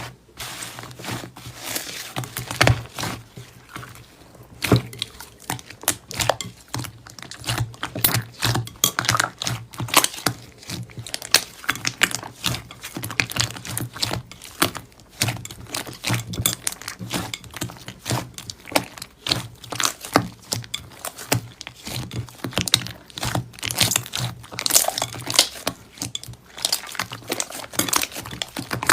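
Slime being squeezed and pressed by hand, giving a dense, irregular run of crackling pops and clicks.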